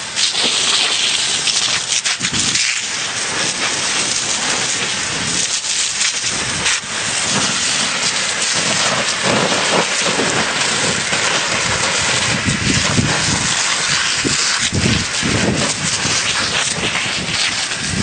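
Forest fire burning: a loud, steady rushing hiss with dense crackling throughout and low rumbles that come and go.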